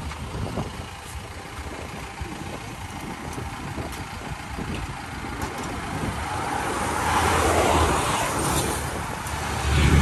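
Road traffic noise with a steady low background din, and a motorcycle passing close by, louder for a couple of seconds about seven to eight seconds in.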